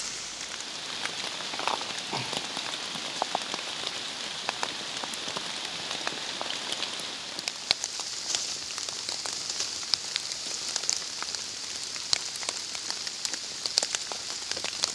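Light rain falling on wet forest leaf litter: a steady hiss with many scattered, close drop ticks.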